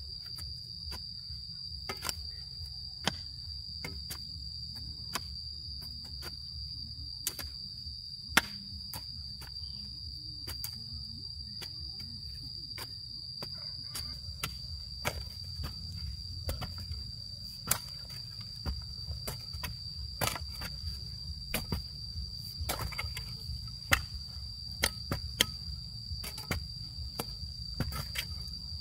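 Insects trilling steadily on one high pitch, with a low rumble underneath. Irregular sharp knocks and clicks, the loudest sounds in the clip, become more frequent about halfway through.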